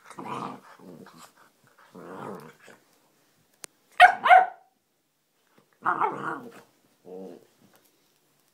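Dog play-growling in several short bursts, with two sharp barks close together about four seconds in, the loudest sounds.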